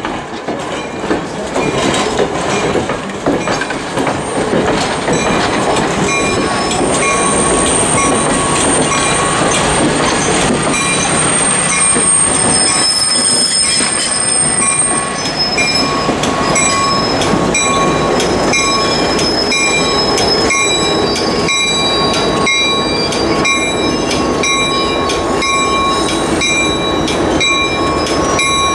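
A train rolling along the track: a steady rumble with repeated clicks of wheels over rail joints. After several seconds a thin high wheel squeal sets in and holds.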